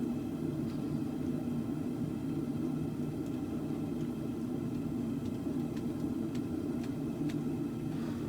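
Forge burner running steadily with a low, even rumble while the khopesh blade heats, with a few faint ticks.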